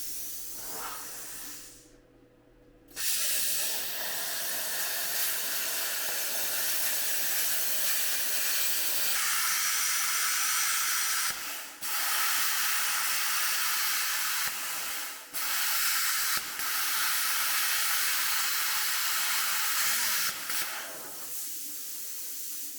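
Small plasma cutter hissing as it cuts through rusted steel truck frame, starting about three seconds in and stopping briefly three times before cutting off near the end. It is underpowered for the thick frame steel.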